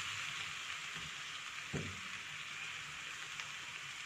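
Spinach and garlic sizzling in hot olive oil in a frying pan: a steady hiss, with a couple of soft knocks of tongs against the pan about a second and nearly two seconds in.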